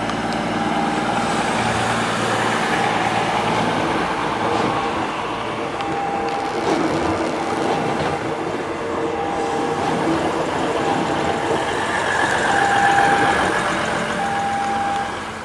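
A KA Bandara YIA airport-line multiple-unit passenger train passing at close range, a steady rumble of wheels on the rails, with short high-pitched tones sounding on and off.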